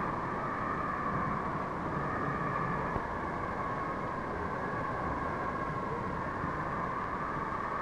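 Steam locomotive standing at a station platform: a steady hiss with a held tone in it.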